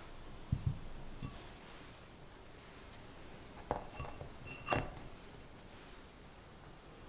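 White ceramic baking dish set down on a table with a couple of soft low knocks. About four seconds in come two sharper knocks, the second with a brief ringing clink of the ceramic, as a round ladyfinger sponge disc is laid into the dish.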